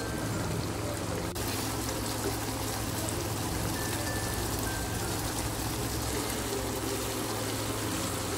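Sweet soy sauce bubbling at a steady simmer in a wok around chicken pieces and potato cubes.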